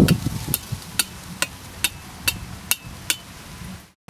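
A thin blade tapping on the top of a green bamboo pole: a heavier knock at the start, then sharp, evenly spaced taps about two a second. The taps stop suddenly near the end.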